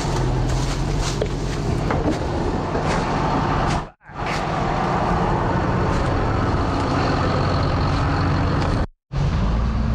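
Log skidder's diesel engine running steadily close by, a low, even drone. It cuts out abruptly twice, about four and nine seconds in.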